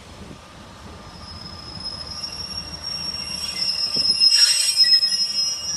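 Class 142 Pacer, a four-wheeled diesel railbus, moving along the platform with its wheels squealing on the rails: several high, steady whistling tones that grow louder and are loudest a little past the middle.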